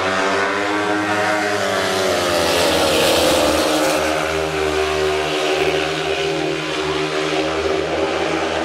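Speedway racing motorcycle engines running hard, their pitch rising and falling with the throttle, swelling to their loudest about three seconds in.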